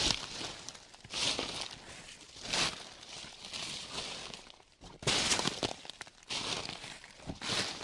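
Footsteps crunching through a thick layer of dry fallen leaves, a crisp crackling rustle with each slow step, about one a second.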